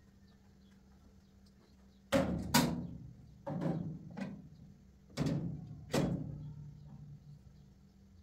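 Teapot and kettle knocked and set down on a wooden cabinet: six sharp knocks in three rough pairs, each ringing briefly.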